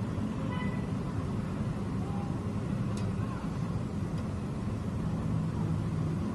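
Steady street noise with a low rumble of passing traffic. A single sharp click comes about three seconds in.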